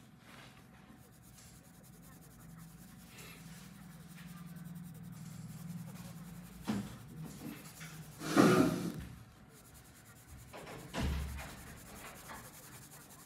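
Felt-tip marker rubbing on paper while colouring in, a soft scratchy sound, with a brief louder rustle a little past the middle.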